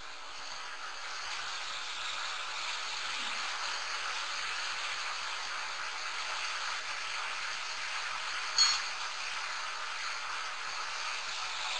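Tomato-and-green-chilli masala simmering in oil and a little water in a pan, a steady sizzle and bubbling, with one brief click about two-thirds of the way through.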